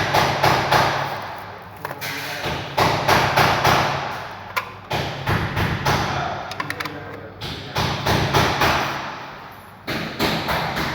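Groups of thumps, several a second, over a steady low hum, heard through a eufy 2K video doorbell's microphone.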